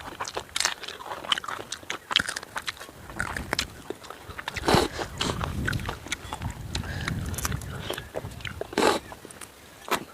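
Close-up eating sounds: a person biting and chewing chicken tandoori, with many sharp, quick crunches and wet mouth clicks, and two louder bursts about five and nine seconds in.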